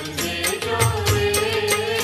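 Garba devotional music with a fast, steady percussion beat under a held melody line.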